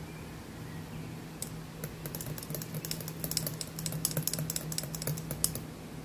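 A spoon clinking rapidly against the inside of a glass tumbler as a drink is stirred: a quick, irregular run of light ticks lasting about four seconds, over a steady low hum.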